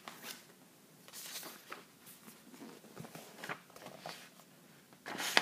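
Paper being handled: a series of short rustles and scrapes as notebook sheets and a textbook are moved about, the loudest near the end.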